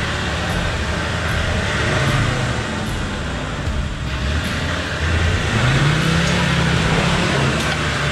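Land Rover Defender 130 pickup's engine working under load as it ploughs through a deep mud rut, with a rev rise about five seconds in, over the churn of tyres and mud.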